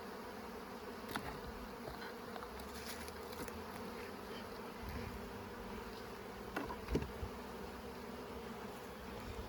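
Honeybees of an opened, well-populated hive buzzing steadily, with a few light knocks about a second in and again near seven seconds.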